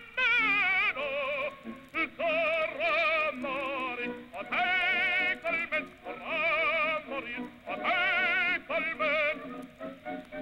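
A solo voice singing sustained notes in an operatic style with a wide vibrato, swooping up into several of the phrases.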